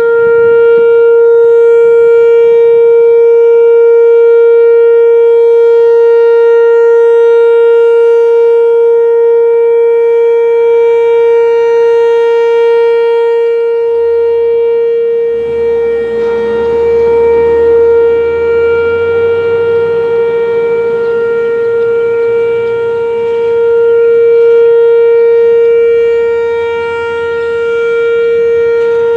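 Whelen WPS-3000 electronic outdoor warning siren sounding its steady alert: one loud, unwavering tone that swells and dips slightly in level. A low rumble passes beneath it in the middle.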